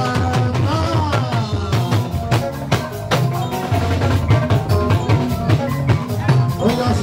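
Dance music with a steady drum-kit beat and a heavy bass line, with a sung melody over it near the start and again near the end.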